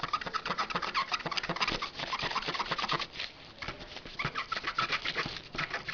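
Rubber eraser rubbed back and forth in quick strokes over the metal contacts of a DDR2 RAM module to clean them, making a rapid scratchy rubbing. It eases off about three seconds in, then picks up again.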